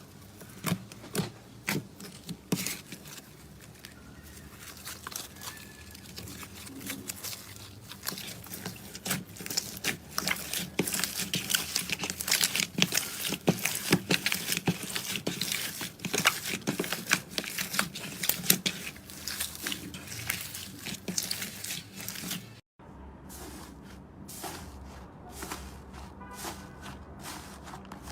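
Slime being worked by hand close to the microphone, making dense crackling and popping clicks. After a brief break about three-quarters of the way through, the pops come sparser.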